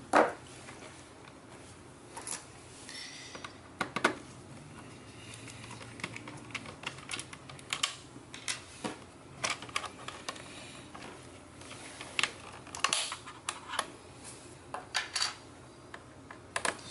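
Irregular light clicks and taps of a small screwdriver working the screws out of a laptop's bottom case, with a sharper knock right at the start.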